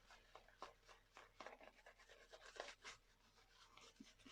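Faint, irregular scratchy swishes of a wet shaving brush being worked to build lather.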